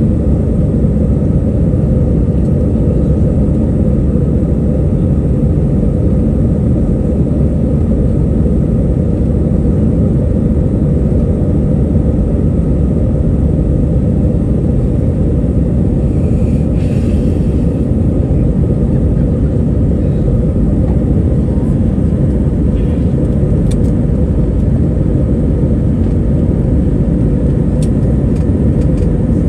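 Airbus A321 in climb after takeoff: a steady, loud low rumble of jet engines and airflow, with a brief hiss about halfway through and a few faint clicks near the end.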